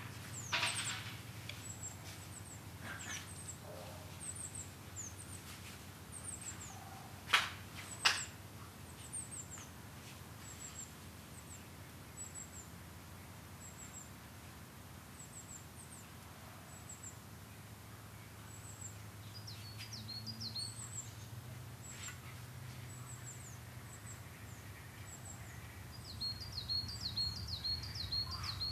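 Outdoor ambience of small birds giving short, thin, high chirps over and over, over a steady low wind rumble. About a quarter of the way in come two sharp, loud clicks less than a second apart, and a quick trill of bird notes follows near the end.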